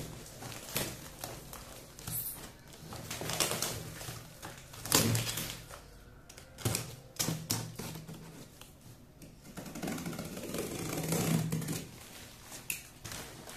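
Cardboard packaging being pulled apart and handled: irregular scrapes, crumples and knocks of stiff cardboard flaps and inserts, with plastic wrapping rustling. There are longer rustling stretches about three seconds in and again around ten to twelve seconds.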